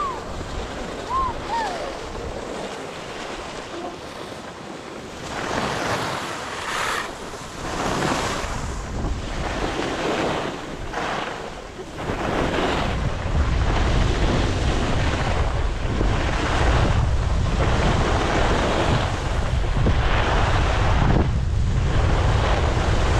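Skis scraping over packed snow in a series of turns, the hiss swelling and fading with each turn, with wind buffeting the microphone; the wind rumble grows stronger about halfway through as speed picks up.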